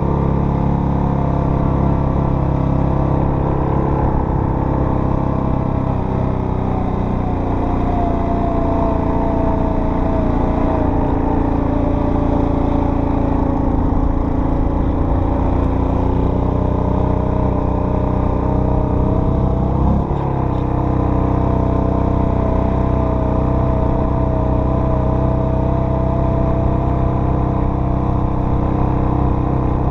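Off-road vehicle engine running steadily while riding, its pitch drifting slowly down and back up with the throttle. There is a brief knock about twenty seconds in.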